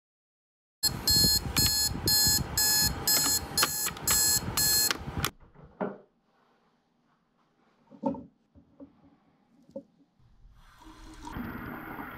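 An alarm clock going off: loud, evenly repeated rings, about two a second, that stop abruptly after about four and a half seconds. A few soft clicks follow, then a bathroom tap starts running near the end.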